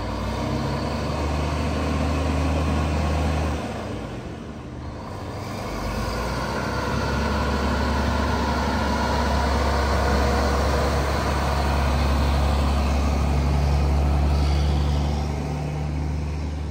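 Mack truck's diesel engine running with a steady low drone. The sound drops away briefly about four seconds in and then builds back up.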